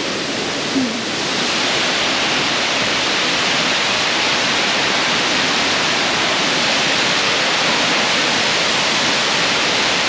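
Tortum Waterfall, a 48-metre fall: the steady rush of water falling. It swells slightly about a second and a half in.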